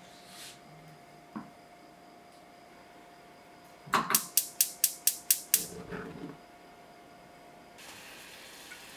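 Gas stove burner's igniter clicking rapidly, about eight sharp clicks at roughly five a second, then a short low rush as the gas catches and the flame lights.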